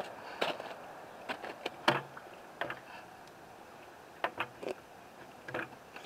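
Irregular crunching footsteps in snow, and a few sharp clicks and knocks as the lid of a plastic sap-collection bucket is handled.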